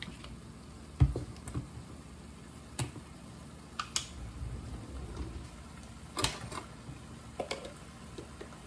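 Scattered clicks and knocks of kitchen things being handled and a drawer being opened, with one louder thump about a second in. A faint steady low hum runs underneath.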